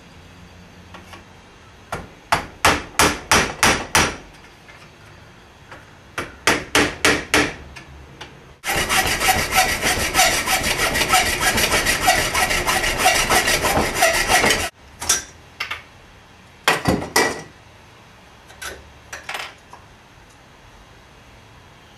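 Hammer striking aluminium tubing clamped in a bench vise, flattening the tube's end: two quick runs of sharp blows, about four a second, then about six seconds of rapid scraping strokes on the metal, then a few more scattered blows.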